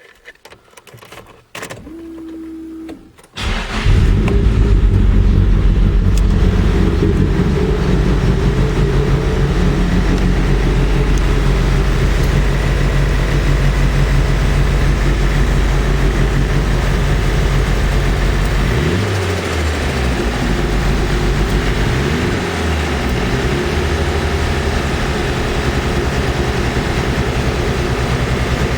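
Nissan SR20DET turbocharged 2.0-litre four-cylinder cold-started: a brief crank, then it catches about three and a half seconds in and settles into a loud, shaky idle, a misfire with the engine running very rich. It is revved up a few times later on.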